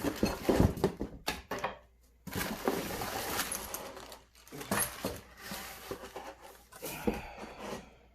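Loose parts of an aftermarket air intake kit (hoses, filter, metal brackets) being handled and pulled from their box: a run of clinks and knocks, then a longer stretch of rustling with more knocks.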